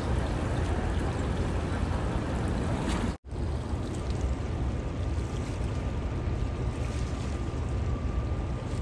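Steady rush of wind and river water with a low rumble, as heard from a boat on the Niagara River. The sound drops out for an instant a little over three seconds in, and after that a faint thin steady whine runs under the rush.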